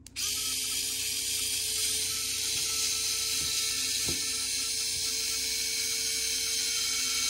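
Electric screwdriver switched on and running steadily at one speed, its motor spinning a weaving bobbin on a speed-winder insert as cotton thread winds onto it.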